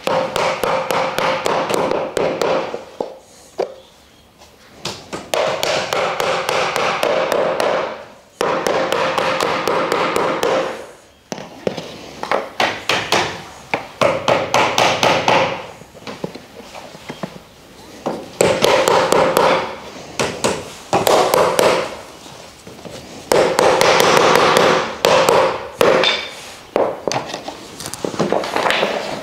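Mallet tapping wooden plant-stand parts together: quick runs of strikes on the wood, in bursts of a few seconds with short pauses between them.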